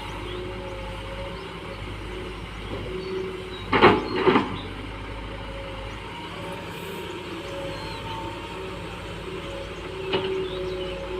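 Hitachi EX120-3 hydraulic excavator engine running steadily. Two loud knocks come about four seconds in, and a lighter one comes near the end.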